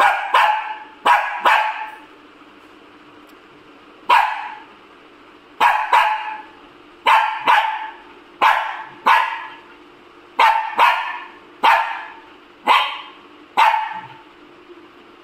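Small dog barking repeatedly: about fifteen sharp barks, single or in quick pairs, roughly a second apart, with a pause of about two seconds after the first three.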